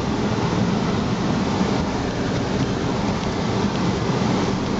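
Steady road and tyre noise of a car driving along, heard from inside the cabin, with a low rumble and no changes in speed or pitch.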